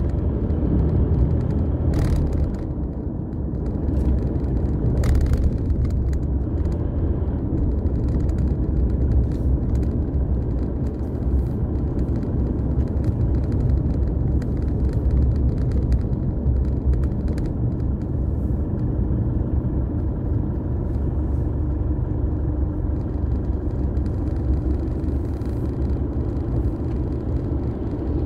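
Car cabin noise while driving: a steady low rumble of engine and tyres on the road, with a couple of short knocks about two and five seconds in.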